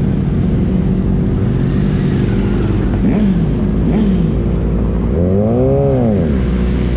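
Several sport motorcycle engines running as the group pulls away, with one engine revving up and dropping back down about five to six seconds in.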